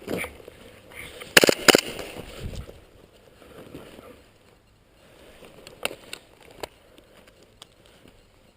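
Two loud, sharp cracks in quick succession about a second and a half in, then a few fainter clicks over low rustling movement.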